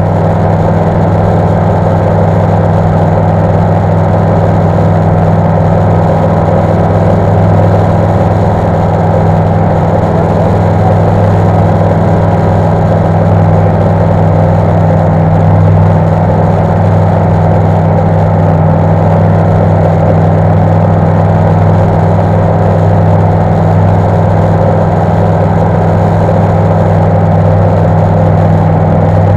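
Flight Design CTSW light aircraft's Rotax 912 four-cylinder engine and propeller running steadily in flight, heard from inside the cockpit as a continuous low drone.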